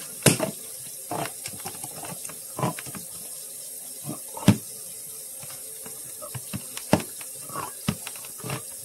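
Handheld manual can opener being cranked around a steel can: irregular clicks as the key is turned and the cutting wheel bites the rim, a few per second, some louder than others.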